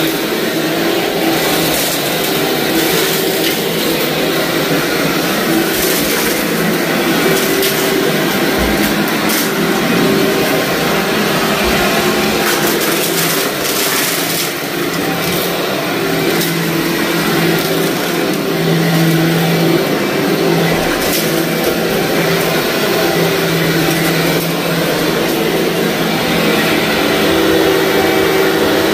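Upright vacuum cleaner running steadily over a heavily soiled carpet, its motor humming while scattered sharp crunches and crackles come from grit and debris being sucked up into the dirt canister.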